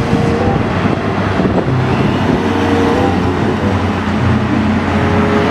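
A concrete mixer truck's diesel engine running steadily as it drives along a road, amid traffic noise.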